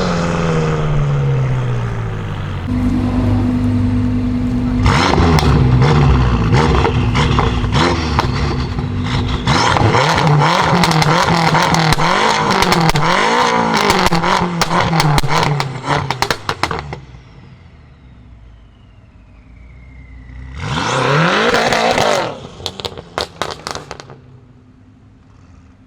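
BMW M5 F10's 4.4-litre twin-turbo V8, breathing through catless downpipes and an M Performance exhaust, being revved hard: the revs first drop, then the engine is held up and blipped repeatedly for about ten seconds over a rapid run of exhaust crackles and pops. After a quieter spell it gives one more short, loud rising rev near the end, followed by a few crackles.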